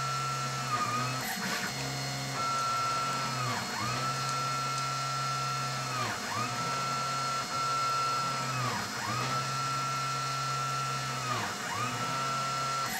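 Stepper motors of a hobby CNC machine whining as they move a hot-wire pyrography pen along the lettering. It is a steady pitched whine with a low hum. About six times, the pitch glides down to a brief stop at the end of a move and rises again as the next move starts.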